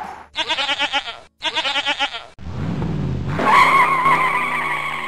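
Two quavering goat bleats, each about a second long, then a car engine revving up and a long tire squeal, as in a sound-effect logo.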